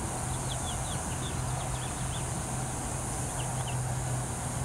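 Small birds chirping in quick short notes, in a spell through the first two seconds and again about three and a half seconds in, over a steady low hum and outdoor background noise.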